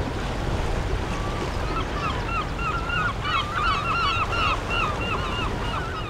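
Sea surf washing and breaking against rocks, a steady rushing. From about two seconds in, birds give a quick run of short, repeated calls, several overlapping, which stop near the end.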